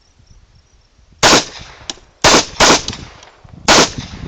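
.45 ACP 1911-pattern pistol firing four shots: one, then a quick pair about a second later, then a last shot about a second after that, each with a short echo.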